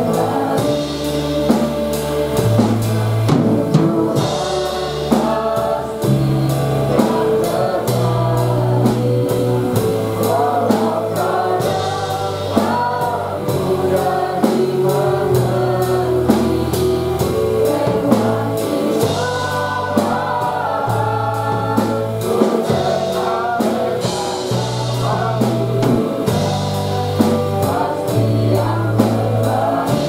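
Live worship band: a girl sings lead through a microphone over drum kit, keyboard and electric bass, with a steady drum beat and a moving bass line under the melody.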